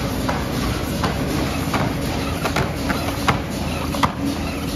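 Automatic bottle cartoning machine running: a steady mechanical hum with repeated sharp clacks, a little under one a second, from its carton-handling mechanism.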